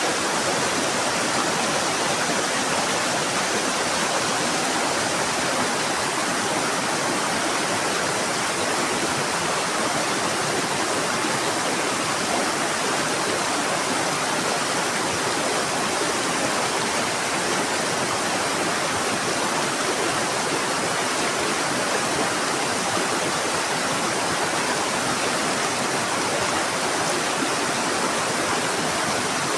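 Fast-flowing mountain river rushing, a steady, unbroken wash of water noise.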